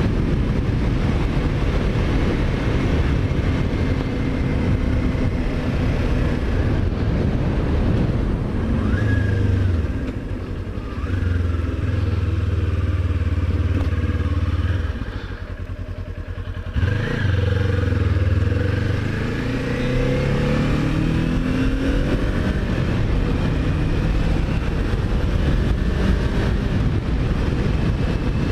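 Kawasaki Ninja 400's parallel-twin engine running as the bike is ridden. About halfway through the engine sound drops away briefly, then the revs climb as the bike accelerates.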